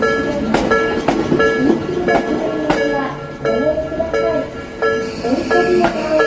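Railway level-crossing warning bell ringing in a steady, repeating two-tone ding-ding, while a Tokyo Metro 13000-series electric train passes through the crossing. Its wheels clack sharply over the rail joints, and its motors whine in wavering pitch.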